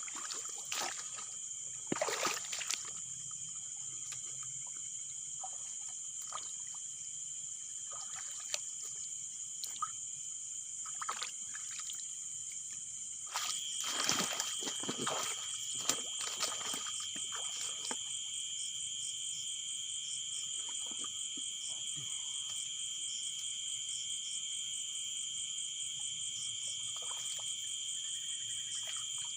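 Night chorus of crickets and other insects: a steady high-pitched trilling, joined about halfway by a second, lower trill. A few short knocks and splashes sound over it near the start and again around the middle.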